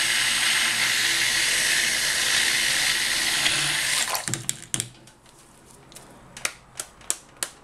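Stick blender running in a cup of cold process soap batter, mixing in the fragrance, then switched off about four seconds in. After it stops come a few light clicks and taps.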